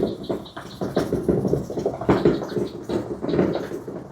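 Quick, irregular scraping and rubbing strokes on a metal roof panel, working off sticker glue softened with Goo Gone.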